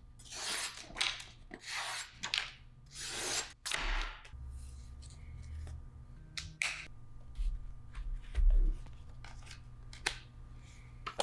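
Hands handling a chef knife, its leather sheath and its cardboard presentation box: a run of scraping, swishing strokes over the first few seconds, then low thuds, a click a little past halfway and a sharp click near the end.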